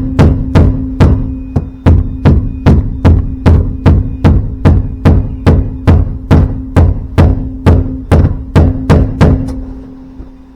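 Background music with a steady percussive beat, about two and a half beats a second over a held low note, fading out near the end.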